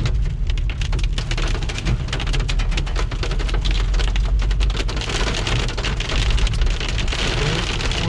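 Hailstones hitting the car's windshield and body in a dense, rapid patter, heard from inside the moving car over the low rumble of engine and road noise.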